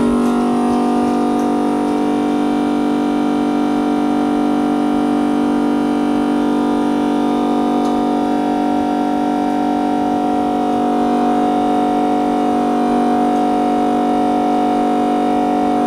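Built-in vacuum pump of a 5-in-1 LCD separator machine running with a steady hum, holding the phone screen down on the suction plate.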